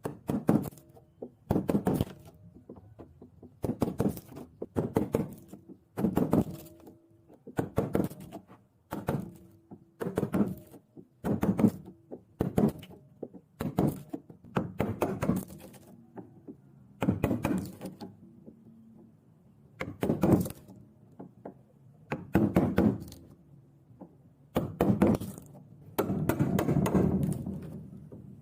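Repeated knocks on wood in a workshop, about one a second, some with a short ringing after the blow, coming closer together near the end.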